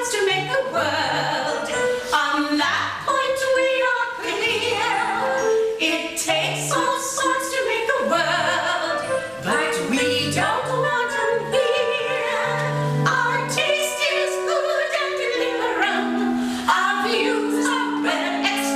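Musical-theatre accompaniment music playing, with a moving bass line and crisp percussive hits under changing melody notes.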